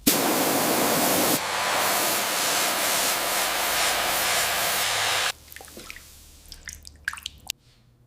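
Steady hiss of a liquid spray for about five seconds, cutting off suddenly. Faint drips and small ticks follow.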